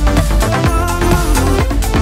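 Electronic dance music with a steady beat and strong bass.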